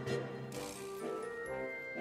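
Background music: a simple melody of held notes.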